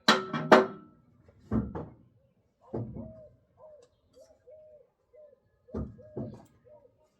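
A few sharp knocks in quick succession at the start, then single dull thuds spaced out over the next seconds, with short squeaky chirps repeating between them.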